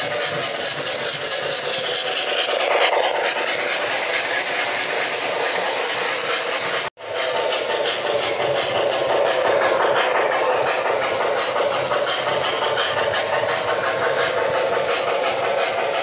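MTH Rail King O-gauge model train running on its track: steady rolling and motor noise with a fine even rhythm. The sound cuts out for an instant about seven seconds in.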